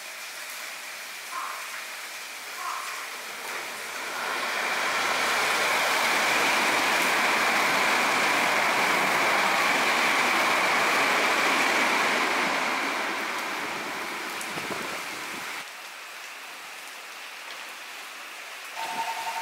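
Heavy rain hissing steadily as a Toei 5300-series electric train runs past close by. Its noise builds from about four seconds in, holds, then fades and cuts off suddenly. Near the end a steady two-note tone starts.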